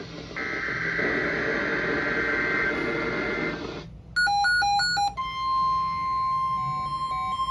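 Emergency alert data header: a harsh two-tone digital screech over radio static that cuts off about four seconds in. A beeped electronic tune of stepping tones follows. About five seconds in, a long steady NOAA Weather Radio alert tone starts under the continuing beeps.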